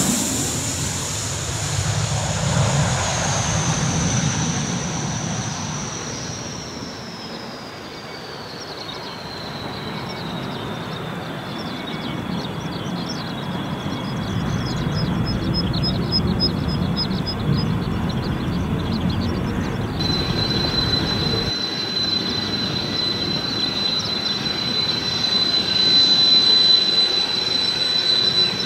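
Kawasaki T-4 jet trainers' twin turbofan engines: a high whine over a low rumble, falling in pitch over the first ten seconds or so as a jet passes overhead with its gear down. About two-thirds of the way through it changes to a steady high whine from a T-4 on the runway.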